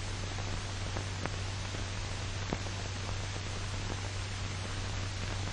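Steady hiss and low hum of an old optical film soundtrack in a pause between narration, with a few faint crackles.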